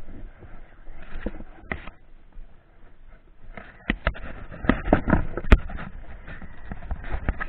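Irregular knocks, thumps and rattles as a small Baja dirt bike and its handlebar-mounted camera jolt over rough ground, most frequent about four to five seconds in.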